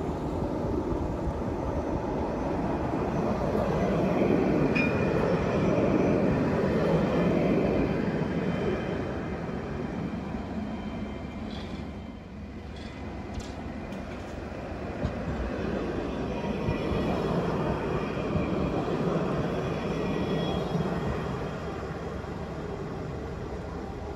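Alstom Citadis 305 tram passing on the track, its running noise swelling to a peak about five to eight seconds in with a brief high wheel squeal, then dying away; the rumble builds again as a second tram approaches.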